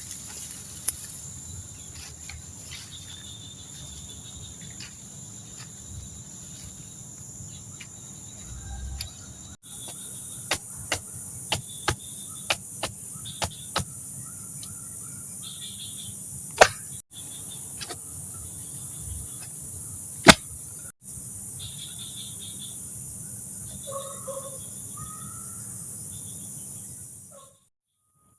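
Steady high-pitched chorus of insects, with a dozen or so sharp clicks and snaps scattered through it. Faint short calls come near the end, and the sound cuts out briefly several times.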